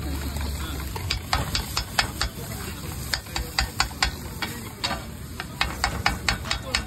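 Metal spatulas striking and scraping a hot griddle (tawa) over sizzling frying food, with sharp irregular clangs a few times a second.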